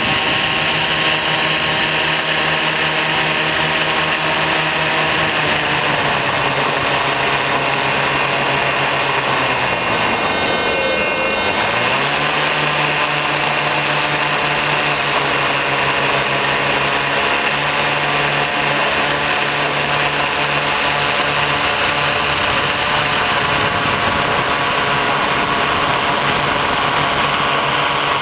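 Remote-control blimp's propeller motors running close by, a steady whine of several tones. The pitch sinks slowly through the middle as the motors are throttled back, then climbs back a second or two later.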